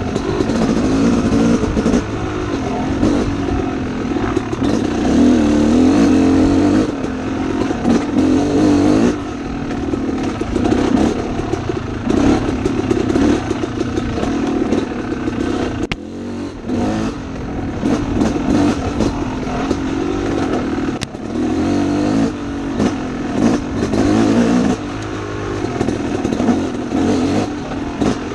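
Dirt bike engine being ridden hard on a trail, revving up and down continuously, with the throttle briefly closing several times before picking up again.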